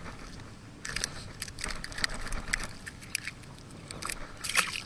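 Bay water lapping and splashing lightly against an inflatable float tube: irregular small wet clicks and slaps over a steady wash.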